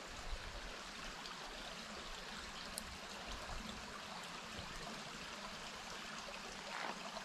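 Small woodland stream trickling over rocks into a shallow pool: a faint, steady running-water sound.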